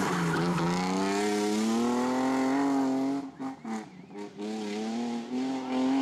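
BMW E30 rally car's engine revving hard as it accelerates out of a hairpin, pitch climbing steadily. About three seconds in it breaks off briefly with a few sharp cracks, then pulls again at a high steady pitch.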